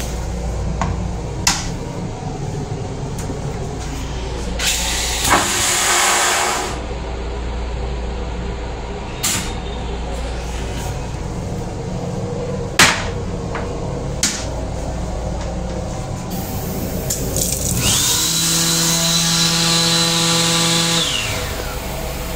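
Toilet in an M8 commuter railcar restroom, with the train's steady low rumble underneath: a few clicks and knocks from the lid and seat being handled, a brief hiss about five seconds in, then near the end the flush, a rush of air with a steady motor hum for about three seconds that winds down.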